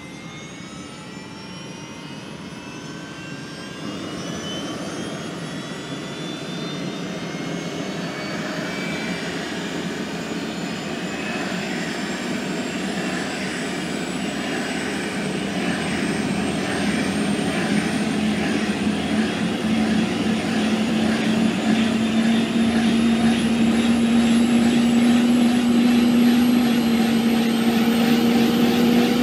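Helicopter turbine engine spooling up: several whining tones rise slowly in pitch over a rushing noise that grows steadily louder.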